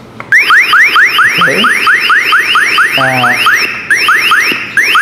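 Wireless motion-sensor alarm receiver sounding its SOS alarm through its built-in speaker: a loud electronic siren of quick rising sweeps, about four a second, repeating evenly.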